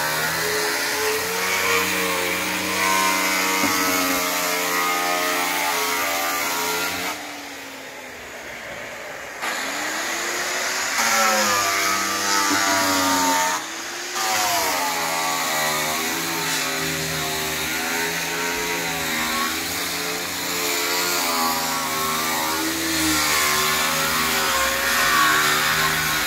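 Corded electric angle grinder with a sanding disc working over wooden boards; its motor whine wavers up and down in pitch as it is pressed into the wood and eased off. About a third of the way in the whine drops away for a couple of seconds, then the motor spins back up with a rising pitch. It dips and rises once more shortly after.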